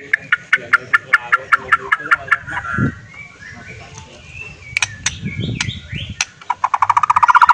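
White-rumped shama singing: a run of evenly repeated whistled notes, about six a second, then varied phrases with a few sharp clicks, breaking into a fast, loud trill near the end.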